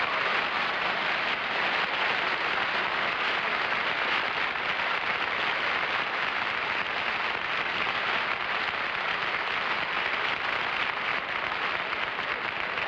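Large studio audience applauding in a long, steady ovation that eases slightly near the end.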